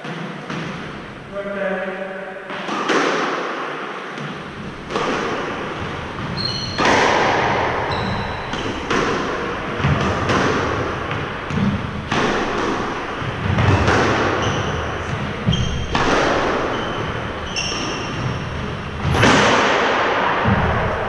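Squash rally: the hollow crack of the ball off the rackets and the court walls, one hit every one to two seconds, each echoing in the enclosed court, starting a few seconds in. Short squeaks from shoes on the wooden floor come between the hits.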